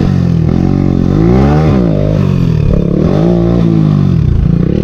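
Hero Honda motorcycle's single-cylinder four-stroke engine running loud through an aftermarket M4 exhaust with its dB killer removed, revving up and falling back twice while riding.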